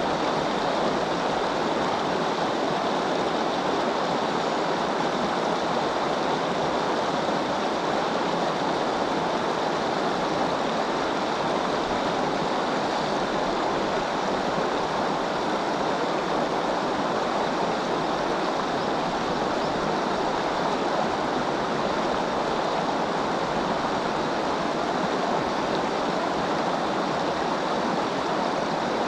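River water rushing steadily past, an even unbroken rush of flowing current.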